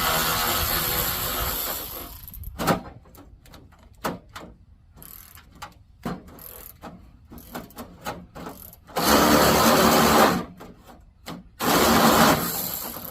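Cordless power driver running in three bursts of one to three seconds, spinning out the door's 11 mm bolts. Sharp metal clicks and clinks fall between the bursts.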